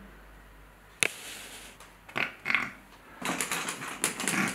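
Metal handcuffs being ratcheted shut: a sharp click about a second in, then a run of quick ratcheting clicks near the end.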